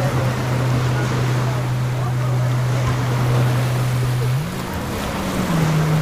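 Motorboat engine running with a low steady hum that rises in pitch for about a second, about four and a half seconds in, then settles back, over the wash of surf.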